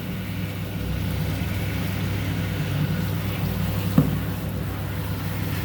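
Shower water running steadily with a low hum as shampoo is rinsed off a chihuahua; a single sharp click about four seconds in.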